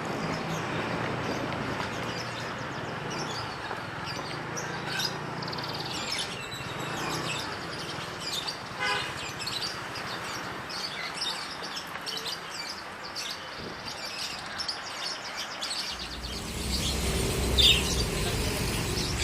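Many caged songbirds chirping and tweeting, with short high calls all through and a rapid trill about nine seconds in, over a steady background rumble that gets louder near the end.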